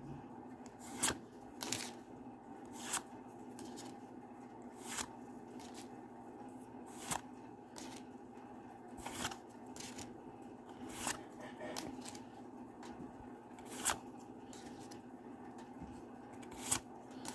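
Pokémon trading cards being flipped through one at a time: a short, sharp papery flick every second or two as each card is slid off the front of the pack, over a faint steady hum.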